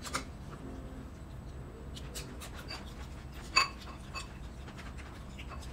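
Eating at a table: quiet mouth and chewing noise with a few light clinks of cutlery against ceramic plates and bowls. The loudest is a single ringing clink about three and a half seconds in, with another lighter ringing tap just after.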